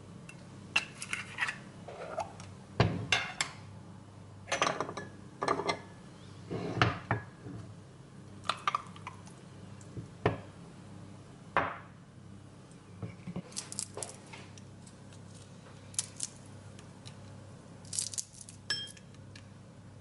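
Kitchenware being handled: ceramic bowls, a glass jar and a wooden cutting board give irregular clinks and knocks. They are busiest in the first eight seconds, and a short ringing clink comes near the end.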